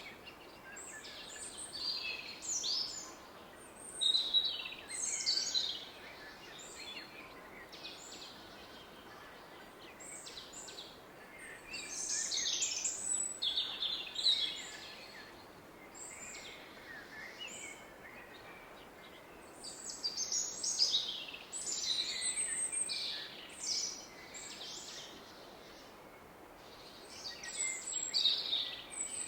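Woodland songbirds singing in bursts of quick, high chirping phrases every few seconds, over the steady rushing hiss of a distant river.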